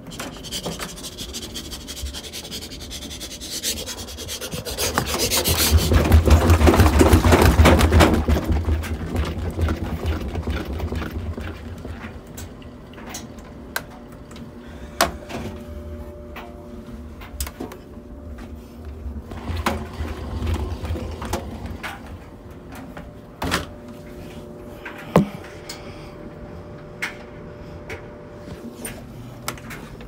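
Front-loading washing machine's stainless steel drum, holding one towel, spun by hand: a rubbing whirr that builds about four seconds in, peaks, then dies away as the drum coasts down, with a smaller swell later. A few sharp knocks near the end.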